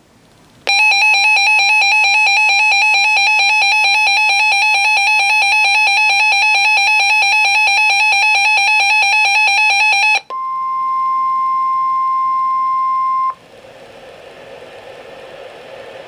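Weather alert radio sounding its alert: a loud electronic tone warbling rapidly for about nine seconds. After it comes a steady single-pitch tone of about three seconds, the NOAA Weather Radio 1050 Hz warning alarm tone. That tone cuts off and gives way to radio hiss that slowly grows louder.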